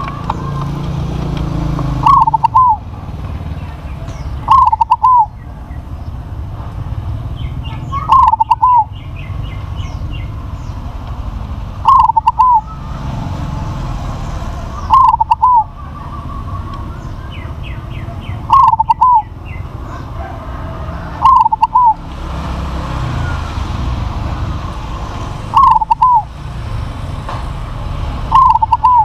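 Crossbred perkutut (zebra dove) cooing loudly close to the microphone: a short phrase of falling notes, repeated nine times about every three to four seconds. Fainter chirps of other small birds sound between the phrases.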